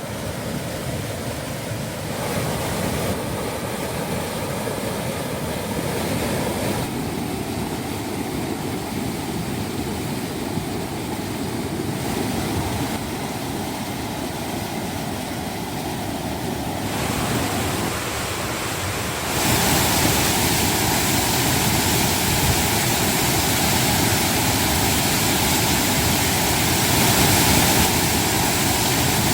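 Waterfall roaring: a steady heavy rush of falling water, its whole flow forced into one half of the falls by typhoon debris, so the volume is huge. The tone shifts a few times, and it gets louder about 19 seconds in.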